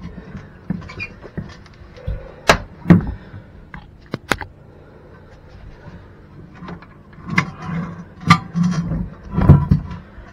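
A string of sharp knocks and low clunks, with quieter shuffling between, as a porcelain toilet is shifted and lined up over its closet bolts; the knocks come in pairs a few seconds apart and cluster near the end.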